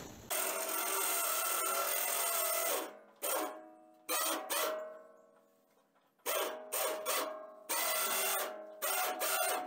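12-volt electric winch running and reeling in its cable to lift and tip a homemade loader bucket: one steady motor whine of about two and a half seconds, then several shorter runs that start and stop abruptly.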